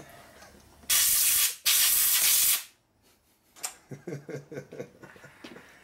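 Two short, loud hissing blasts of compressed air from a shop air blow gun, one right after the other, then a few light clicks of small metal parts being handled.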